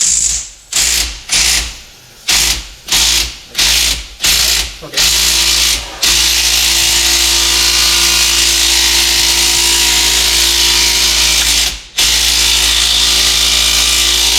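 A power tool's motor triggered in a rapid series of short bursts, about two a second, then run steadily, stopping once briefly near the end before starting again.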